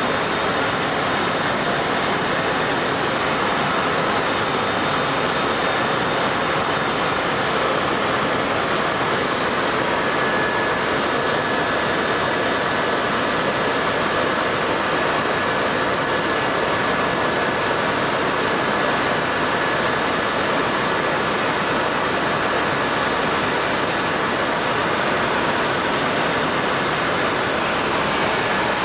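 Steady, loud noise inside a helicopter cabin in flight, with a faint high whine running through it.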